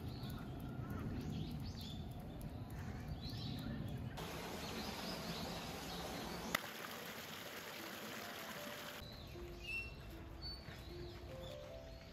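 Small birds chirping and calling over the steady rush of flowing water. The water noise is strongest in the middle few seconds, and a single sharp click comes about halfway through.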